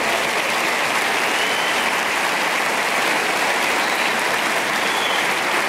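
Large studio audience applauding steadily, many hands clapping at once.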